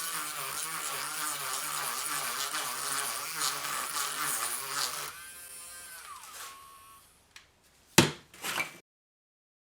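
Small Dremel rotary tool buzzing as it grinds out a hole in wood, its pitch wavering under load, then switched off about five seconds in and spinning down with a falling whine. Two sharp knocks follow near the end.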